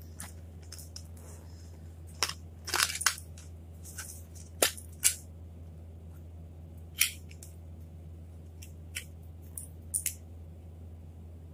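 Hands unwrapping a small gift: packaging crinkling and a small jewellery box being handled and opened, in scattered sharp clicks and crackles that are busiest about two to five seconds in, over a steady low hum.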